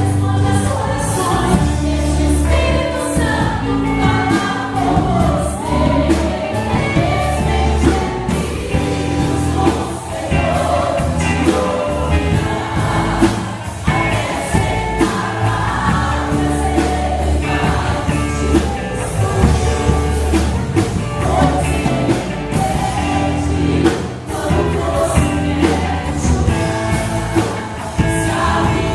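A worship band and singers performing a gospel song live: voices singing over a steady bass line, drums and cymbals.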